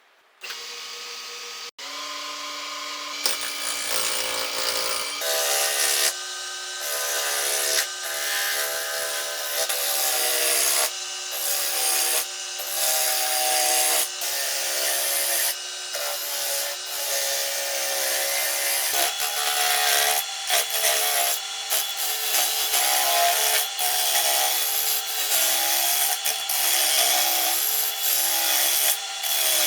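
Electric power tool running as it works the material, its pitch wavering under load, with short breaks every second or two as it is eased off the work.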